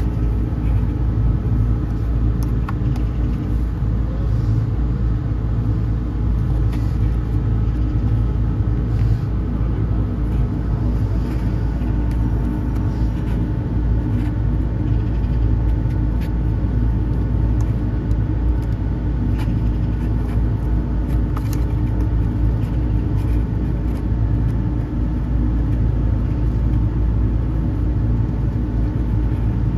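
Steady low machine hum and rumble that does not change, with a few faint clicks over it.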